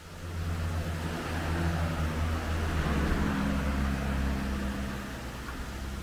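A car driving on the mountain road below, its engine and tyre noise rising in the first second, loudest about halfway through, then fading as it passes.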